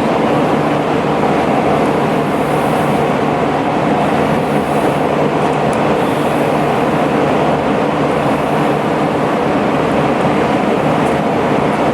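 Loud steady machine running noise with a low hum, even throughout, with no hammer blows.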